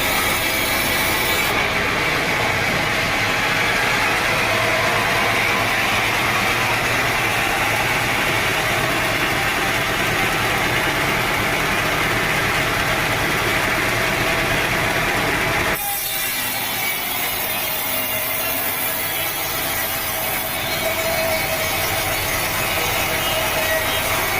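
Sawmill blade running steadily through a teak log, a loud continuous sawing noise. It changes abruptly about sixteen seconds in and carries on with a slightly different tone.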